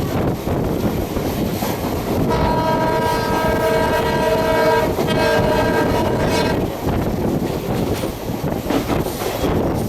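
Passing train rumbling and clattering on the rails, with a diesel locomotive's multi-tone horn sounding about two seconds in: one long blast and then a shorter one right after it.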